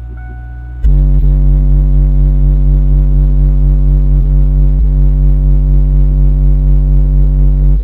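Custom 12-inch car subwoofer playing a 48 Hz test tone at about 138.5 dB inside the car cabin for an SPL burp. The loud, steady tone kicks in about a second in and cuts off abruptly at the end.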